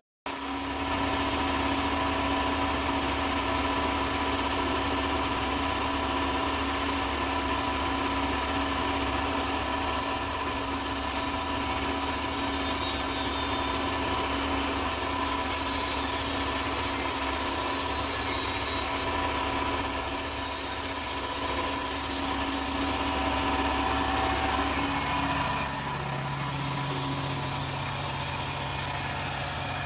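Crane lorry's engine running to drive the truck-mounted crane's hydraulics, a steady drone with several held tones. About 25 seconds in the pitch shifts lower and the sound settles slightly quieter.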